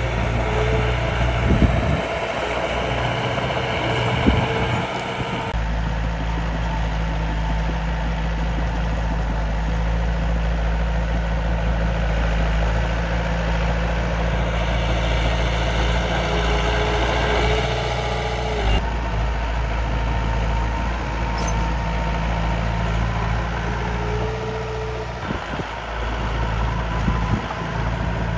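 Miniature dump truck and bulldozer running, a steady engine-like hum while they work soil. The sound changes abruptly about five seconds in and again just before twenty seconds.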